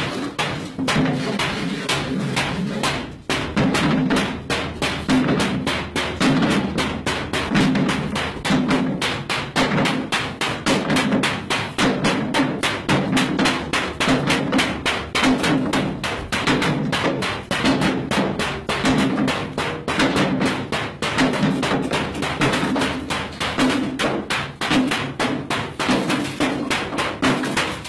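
A large hand-held frame drum beaten in a fast, steady rhythm, with a deeper stroke about once a second.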